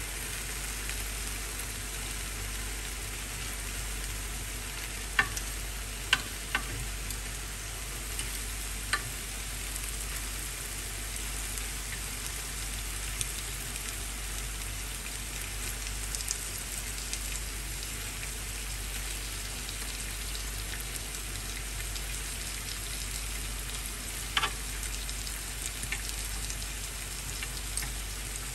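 Chicken pieces sizzling steadily in a hot pan. A few sharp clicks of a metal spatula against the pan come as the pieces are turned, mostly early on and once near the end.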